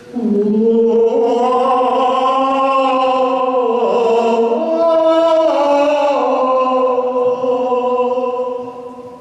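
A male and a female voice singing long sustained notes together in harmony, the pitches sliding slowly from one note to the next. The voices fade out near the end.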